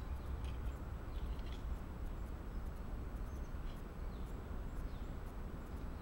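Quiet woodland ambience: a steady low rumble with a few faint, short high bird chirps scattered through it.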